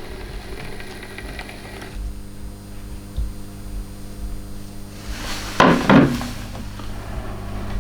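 Model railway locomotive, a Bachmann GWR 64xx pannier tank propelling an autocoach, running slowly along the track with a steady electric motor hum, slowing for a station. Two sharp clattering knocks come about five and a half and six seconds in.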